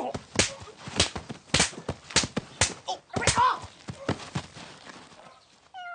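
A rapid run of open-hand slaps: sharp smacks about two a second, with a short cry about three seconds in. The slaps thin out after about four and a half seconds, and a short pitched call starts right at the end.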